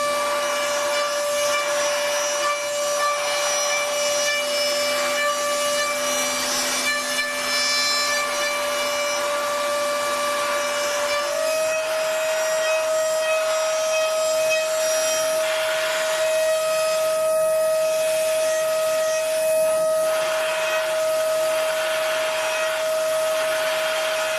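CNC machine spindle running while cutting: a steady high whine over rough cutting noise, the pitch stepping slightly higher about eleven seconds in.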